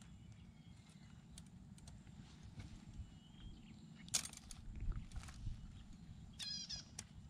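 Collapsible wire-mesh crab trap being handled as bait is fixed inside, giving scattered light clinks and a couple of sharper clicks a little past halfway, over a steady low rumble. A short high warbling chirp sounds near the end.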